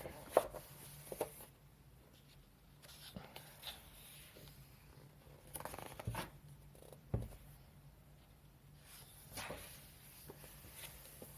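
Heavy paper pages of a thick colouring book being turned: several soft rustles and light taps, spread out, the sharpest about half a second in.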